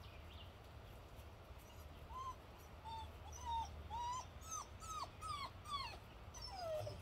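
Cane Corso puppy whimpering: a string of about nine short, faint whines, each bending up then down in pitch, starting about two seconds in and ending with a longer falling whine.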